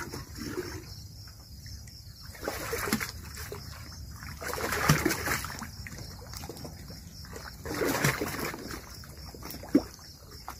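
Water splashing in several separate bursts as a bucket draws water from an old well, with one sharp knock near the end.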